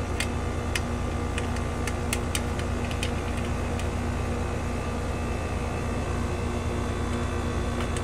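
Steady hum of a running air-conditioning unit, with a few light clicks in the first three seconds.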